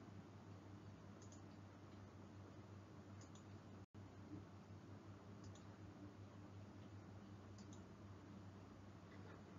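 Near silence: a faint steady low electrical hum with soft, short clicks about every two seconds. The sound cuts out for an instant about four seconds in.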